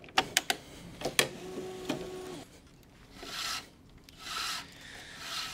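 Tennis string being pulled by hand through the woven mains of a racquet on a stringing machine: a few sharp clicks near the start, then three rasping swishes as the loose string slides through the string bed.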